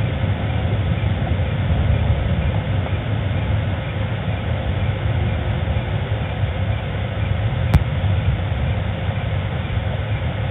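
Steady low rumble with a single sharp click near the end.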